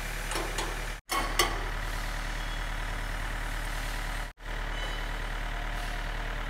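Farm tractor's diesel engine idling steadily, with a few sharp metal clinks from the three-point hitch pins and links in the first second and a half. The sound drops out briefly twice.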